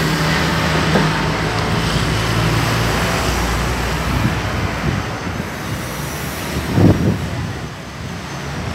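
Road traffic on a town street: a vehicle's engine hum fades over the first few seconds, leaving a steady traffic noise, with a brief thump about seven seconds in.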